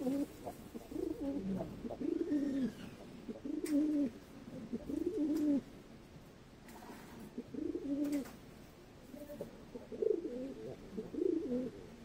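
Chila pigeons cooing: a run of repeated rolling coos, each rising and falling in pitch, with a short lull about six seconds in.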